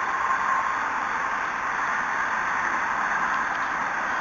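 Steady outdoor ambience: an even hiss with no distinct events, and a faint steady tone in the first half-second.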